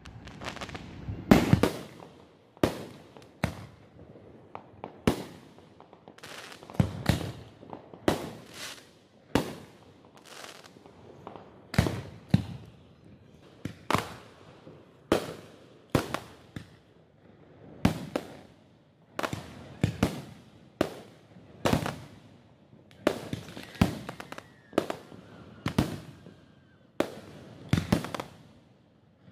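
Professional aerial firework shells bursting overhead in quick succession, roughly one bang a second, each trailing off briefly; the loudest comes about a second and a half in.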